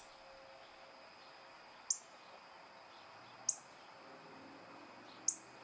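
Male northern cardinal giving sharp, high, metallic chip calls, three single notes about one and a half to two seconds apart, each dropping quickly in pitch.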